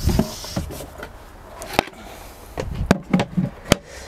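Removable storage boxes and base panels of a camper van's bed being handled and set in place: a few sharp knocks and bumps, the clearest about two seconds in and near the end.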